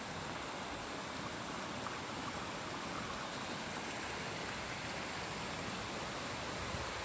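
Spring water running out of a rock opening and splashing over stones into a channel: a steady, even rushing.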